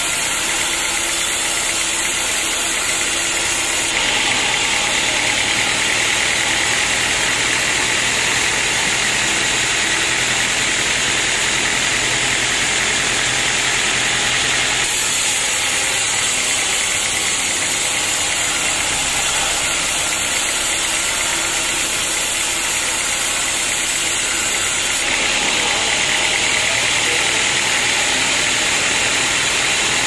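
Band sawmill blade cutting lengthwise through an old, dense teak log, a steady loud running saw noise with the drive motor under it; the tone shifts abruptly a few times.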